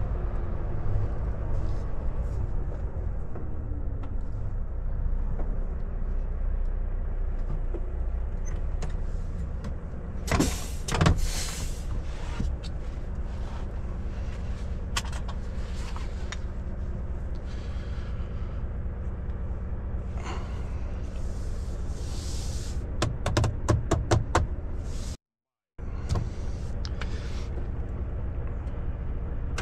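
Volvo FH460 truck's diesel engine heard from inside the cab, running steadily as the truck creeps forward and comes to a stop. Clusters of sharp clicks and knocks come about ten seconds in and again near the end.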